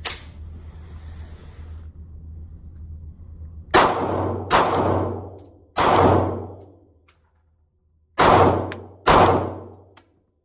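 Taurus G2C 9mm pistol fired five times in quick succession: three shots, a short pause, then two more. Each shot is followed by a long echo. A sharp click comes just at the start.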